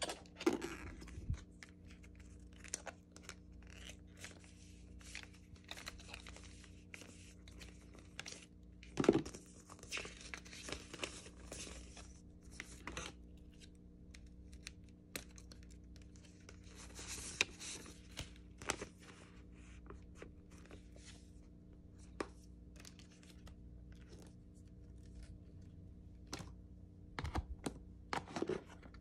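Paper and cardboard packaging being handled: rustling and sliding of paper inserts and the box's inner tray, with scattered light clicks and taps and a sharper knock about nine seconds in.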